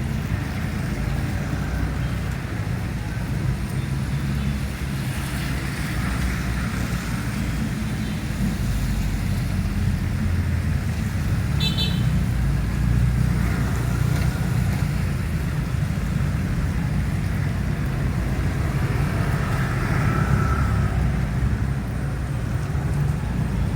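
Steady low rumble of road traffic, with a short high-pitched beep about twelve seconds in.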